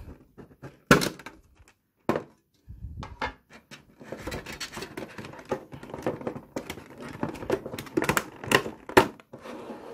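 Pokémon card product packaging being opened and handled by hand: scattered sharp clicks and knocks, low thuds, then a dense run of small clicks with a few sharp taps near the end.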